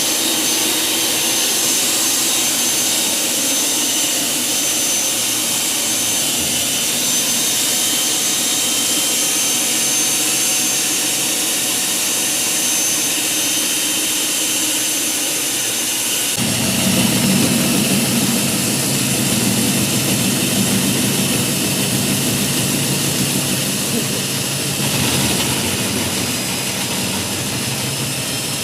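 Water-fed electric diamond core cutting machine running, boring a hole through a concrete slab, with a steady high whine. About sixteen seconds in, the sound turns fuller and lower as a grinding layer joins and stays.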